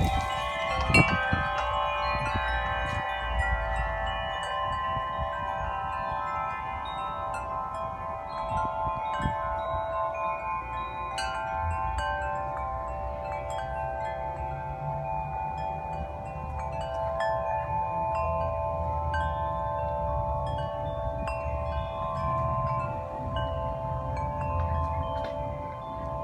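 Several large tuned wind chimes ringing in gusty wind, their strikes overlapping into a continuous wash of sustained tones, with a low rumble underneath.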